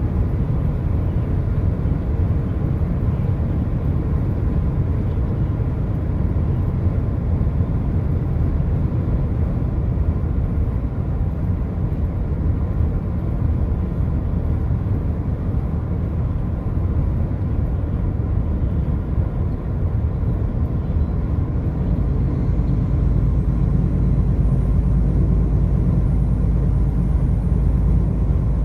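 Steady low rumble of a car driving on the highway, tyre and engine noise with no distinct events; the deepest part of the rumble grows heavier for the last several seconds.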